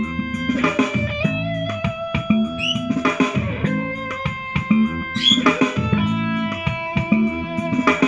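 Music with guitar, bass and drums played through a small Bluetooth speaker and recorded straight from the air, unprocessed.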